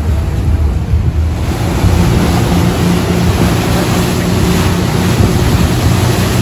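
Speedboat running at speed: a low engine drone under the rush of spray from the hull and wind buffeting the microphone. The water and wind noise grows louder about a second and a half in.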